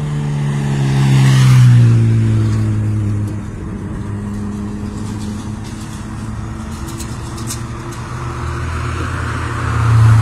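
Motor vehicle passing close by, its engine pitch dropping as it goes past, then an engine running steadily, with another vehicle growing louder near the end.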